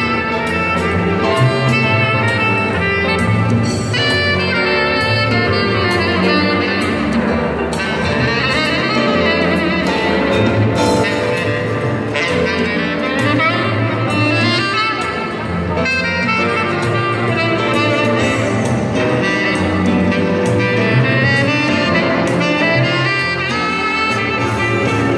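Instrumental music playing steadily, with melody lines over a regular bass.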